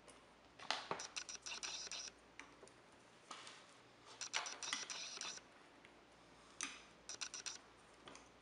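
Screwdriver turning small screws in a toy-train motor's metal frame: light metallic clicking and scraping in three short spells.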